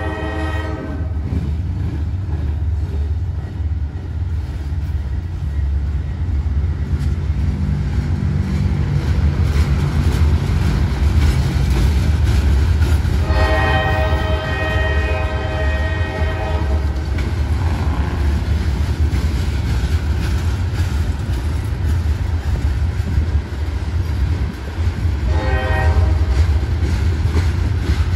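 Freight train of hopper cars rolling past with a steady wheel rumble and clatter, while a diesel locomotive's multi-note air horn sounds: a blast ending about a second in, a long blast roughly halfway through, and a short one near the end.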